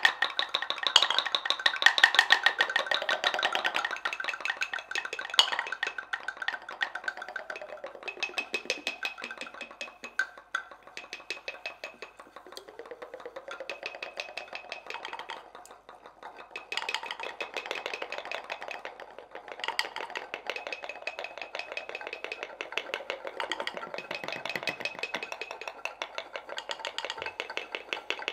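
Seven wooden mortars played as percussion instruments: a dense stream of quick wooden clicks and taps, with ringing and gliding pitched tones mixed in. It is loudest at the start, thins out in the middle and builds again in the second half.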